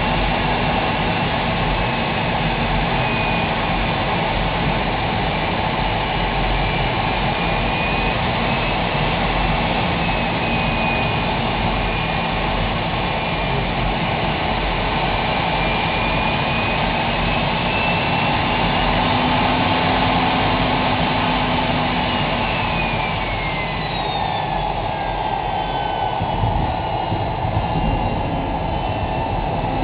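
Aero L-39 Albatros jet trainer's Ivchenko AI-25TL turbofan heard from inside the cockpit: a steady jet roar with a high, wavering whine. About 23 seconds in the whine falls in pitch as the engine is throttled back toward idle, and a few light bumps follow near the end as the jet comes onto the runway.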